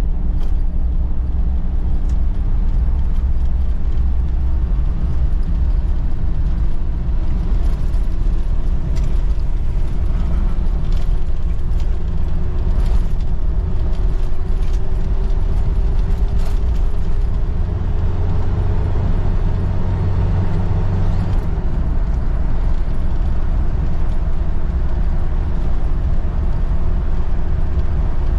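Steady road and engine rumble of a moving car, heard from inside the cabin. A faint whine slowly rises in pitch over the first two-thirds, then holds steady, with a few light clicks and rattles.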